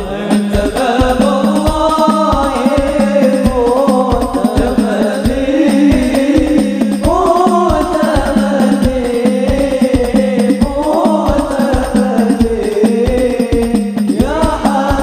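Sholawat devotional singing: a lead male voice with a group, over banjari-style frame drums (rebana) beating a steady low pulse of about two beats a second.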